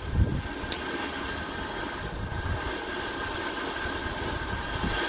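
Ground fountain firework spraying sparks and small red stars, giving a steady hissing rush with no bang, and one sharp crackle under a second in.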